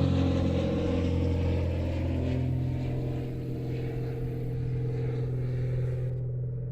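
A passing motor vehicle's engine running steadily and fading as it moves away.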